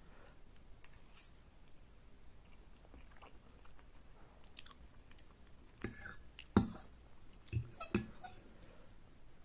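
Close-miked chewing of Korean noodles, soft and faint at first. About six seconds in come a few sharper, wet clicky mouth sounds, the second of them the loudest.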